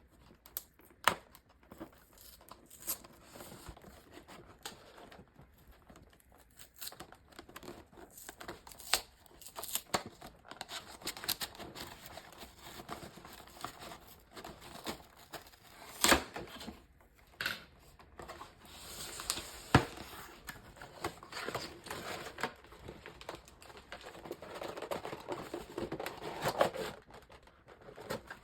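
A vintage 1990s doll-set box and its packaging being opened by hand: tearing and crinkling of cardboard, paper and plastic, with scattered sharp snaps and clicks, the loudest three about a second in, about 16 seconds in and about 20 seconds in.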